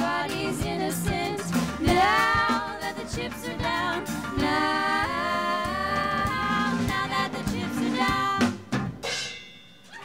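Live band with drums finishing a song, three women singing close harmony over it, ending on a last hit about eight and a half seconds in that rings out and fades.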